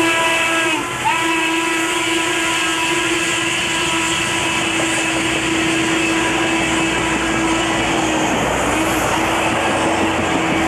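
Passenger cars of a steam excursion train rolling past at speed with a steady rumble, while the receding Norfolk & Western class A 1218 steam locomotive's whistle holds one long steady note that breaks off briefly near the end and then sounds again.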